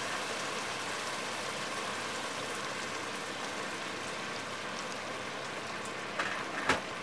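Hot water poured from a kettle into a hot pot of rice, chorizo and potatoes, the liquid hissing and bubbling steadily. Two short knocks near the end.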